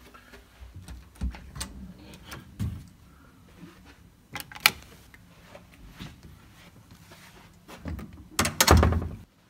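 Hotel room door being worked from inside: scattered clicks and knocks from the metal swing-bar door guard, lever handle and latch, one sharp click a little under five seconds in. A louder clatter of latch and door near the end as the door is opened.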